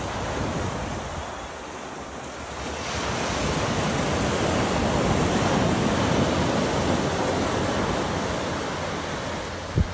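Ocean surf washing in, the noise swelling to a peak a few seconds in and then easing off, with wind buffeting the microphone. A short knock near the end.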